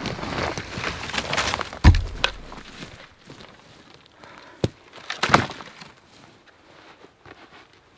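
Dead wooden branches rustling as they are carried through the undergrowth, then dropped on the ground: a heavy thud about two seconds in, followed by a sharp knock and a clatter of wood a few seconds later.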